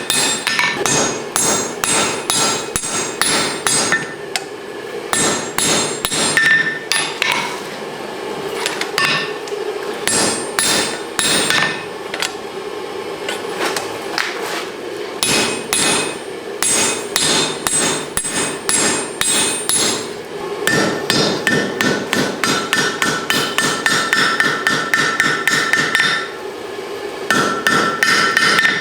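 Hand hammer forging hot mild steel on an anvil: a fast, steady run of blows, about two to three a second, with a high ringing tone from the anvil between them. The hammering stops briefly near the end, then starts again.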